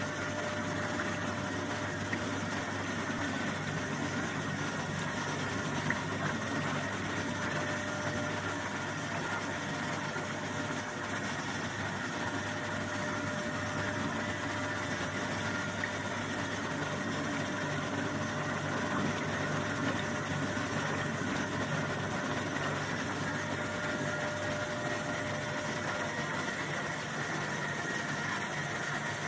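Motor-driven soybean washing machine running steadily: a constant hum from the drive motor and belt, with soybeans churning in the water tank.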